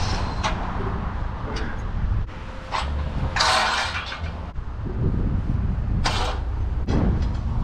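Heavy truck's diesel engine running with a steady low rumble, with two short bursts of hiss, one about three and a half seconds in and a shorter one near six seconds.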